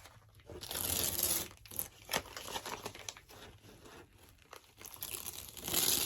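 Tape being peeled off a freshly painted picture frame and crumpled, in irregular crinkling, tearing bursts; the biggest comes about a second in and another near the end.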